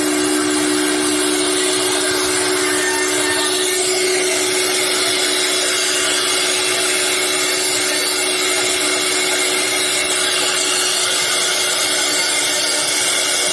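Multi-spindle CNC woodworking router running steadily: a constant spindle whine over the hiss of the bit cutting wood.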